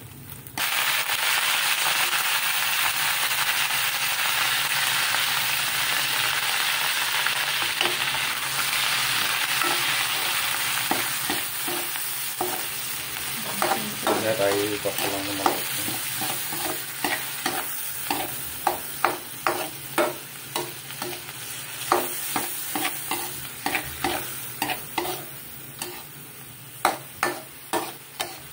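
Pork pieces and salted shrimp paste frying in an aluminium pan with a steady sizzle, starting suddenly about half a second in and easing off over the second half. A spoon stirs and scrapes through the food, knocking against the pan in quick clicks that come more often toward the end.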